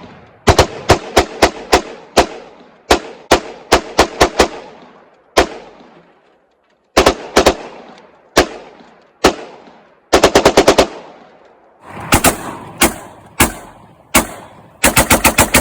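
Gunfire: dozens of sharp shots, some fired singly and some in quick strings of five or six, with a short pause about halfway through, fired at a microwave oven.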